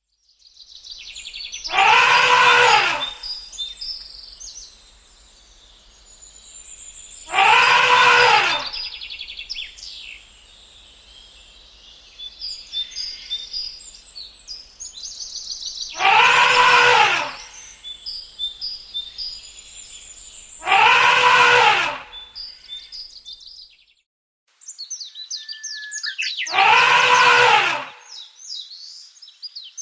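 Elephant trumpeting: five loud, brassy calls of about a second each, spaced several seconds apart, over a background of birds chirping.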